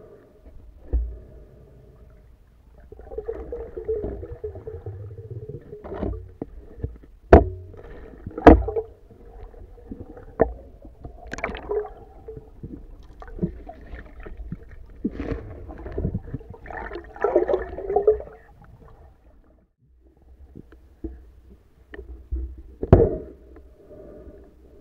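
Underwater sound picked up by a submerged camera: muffled sloshing and rustling of water movement with a low rumble, broken by sharp knocks, two loud ones about seven and eight and a half seconds in and another near the end.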